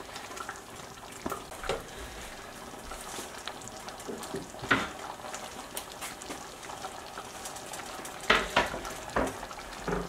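Thick tomato-and-cream curry gravy simmering in a pan, with a low steady bubbling and a few sharp plops as bubbles burst, the loudest near the end.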